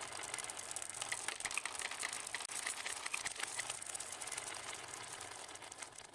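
Marbles rolling and clattering down marble-run ramps: a steady rattling roll dotted with clicks and short bright clinks as the marbles knock together, dying away near the end.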